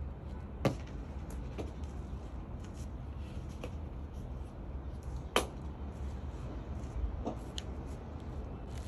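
Two sharp knocks about five seconds apart, with a few fainter taps between and after, over a steady low hum.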